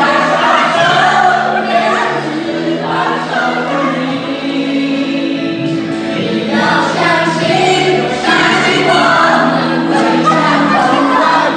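Music: a song sung by a choir of voices over sustained instrumental notes.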